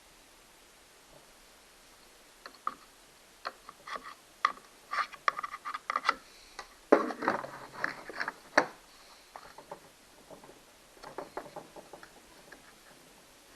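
Tools and parts clicking, tapping and knocking against a Stihl 029 chainsaw as it is taken apart: a run of irregular clicks starting a few seconds in, busiest around the middle, then a few lighter clicks near the end.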